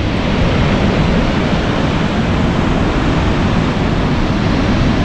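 Surf breaking and washing up a sandy beach, with wind buffeting the microphone; a steady wash of noise with no distinct events.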